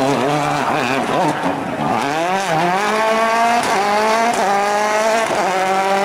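Ford Fiesta WRC rally car's 1.6-litre turbocharged four-cylinder engine, its note wavering for the first two seconds, then accelerating hard with a steadily rising pitch. It shifts up about three times, each shift a brief dip before the pitch climbs again.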